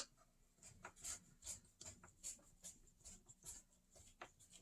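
Faint small clicks and scrapes, two or three a second, of a hand tool turning the screws that hold a Onewheel Pint X slider plate.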